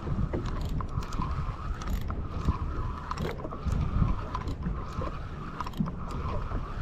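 Small fishing boat at sea: a steady low rumble with a continuous, slightly wavering mid-pitched hum, and scattered light clicks and knocks.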